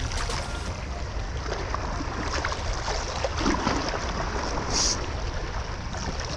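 Wind rumbling on the microphone over the wash of sea water on a rocky shore, with a brief high hiss about five seconds in.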